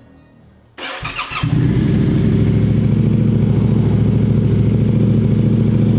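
Yamaha Ténéré 700's 689 cc parallel-twin engine cranked by the electric starter and catching about a second and a half in, then idling steadily. It runs loud and deep through an aftermarket high-mount exhaust with the baffle removed.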